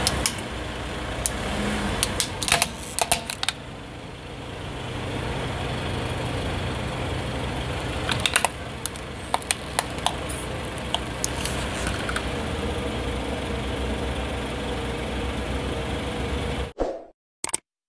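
Low steady rumble of a car engine, with sharp clicks and cracks as the tyre presses on and crushes a hollow plastic frog toy on gritty asphalt, in two clusters about two and eight seconds in. The sound cuts off abruptly near the end.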